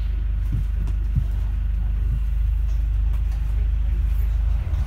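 Steady low rumble of a double-decker bus running, heard from inside, with a few faint low knocks in the first second or so.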